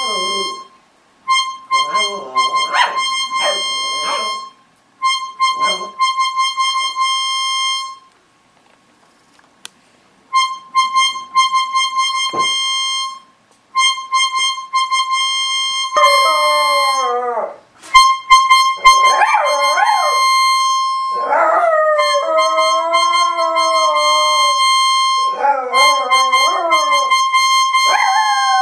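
A poodle howling along to an organ playing one held high note in repeated phrases. The dog's part is faint at first. From about halfway on it becomes loud, long howls that waver up and down in pitch over the steady organ note. The organ stops briefly about a third of the way in.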